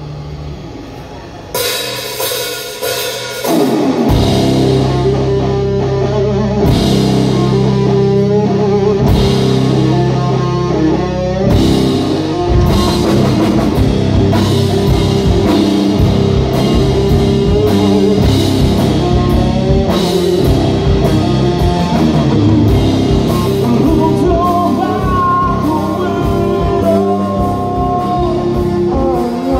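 Live rock band playing electric guitar, bass guitar and drum kit. The music starts about a second and a half in, and the full band comes in, much louder, about four seconds in.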